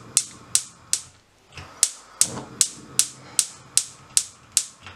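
Gas hob's electric spark igniter clicking repeatedly, about two and a half sharp clicks a second with a short pause about a second in, as a burner is being lit under the pot.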